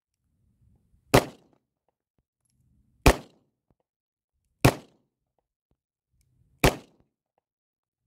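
Four single shots from a Smith & Wesson CSX 9 mm compact pistol, spaced about one and a half to two seconds apart, each a sharp report with a brief tail.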